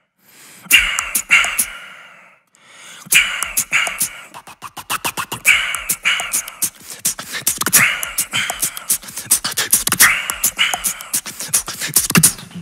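Solo human beatboxing: a few sharp mouth-percussion hits, a short pause, then from about three seconds in a fast, dense rhythm of clicks, kicks and hissing snare sounds.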